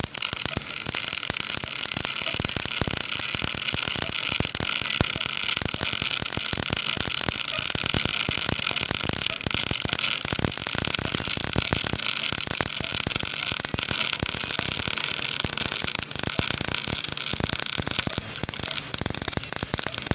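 MIG welder's arc crackling and sizzling steadily while a weld bead is run, a dense, fast, even crackle.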